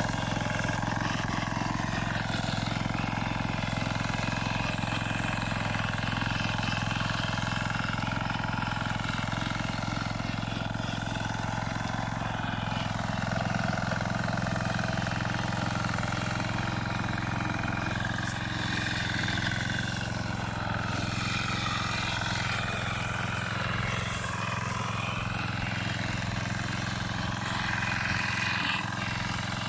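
Small engine of a walk-behind motor tiller running steadily under load as its tines churn the soil, its note shifting now and then.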